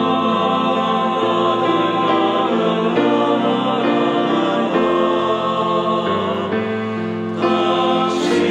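Male choir singing a slow sacred song in several-part harmony, the voices holding each note and changing chords together about once a second.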